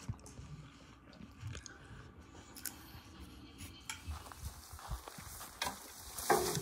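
Cutlery and dishes clinking and scraping at a meal: scattered small clicks and knocks, with a louder clatter near the end.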